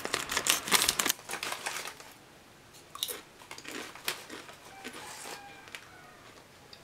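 Scissors cutting open a crinkly foil chip bag: loud crackling and crinkling of the bag for about the first second, then only faint scattered rustles and clicks.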